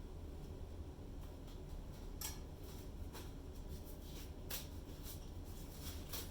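Quiet room with a low steady hum and a handful of faint, sharp clicks and taps, scattered irregularly.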